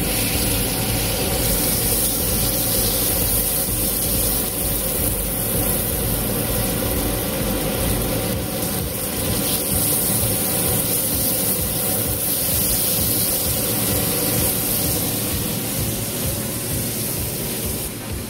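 Sliced onions sautéing in oil in a nonstick skillet, stirred with a silicone spatula: a steady sizzling hiss over a constant low rumble.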